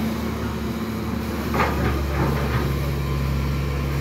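Demolition excavator's diesel engine running with a steady low drone, and a quick run of four sharp knocks and clatters about one and a half to two and a half seconds in, like brick debris being struck or dropped.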